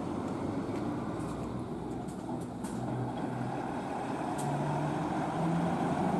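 Diesel city bus driving past, its engine note climbing in pitch during the second half as it pulls across an intersection, with a few faint sharp ticks early on.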